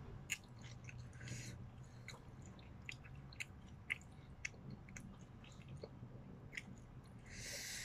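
Close-up mouth sounds of someone chewing a mouthful of chicken noodles: soft, irregular wet clicks and smacks. There is a short hiss about a second and a half in and another near the end.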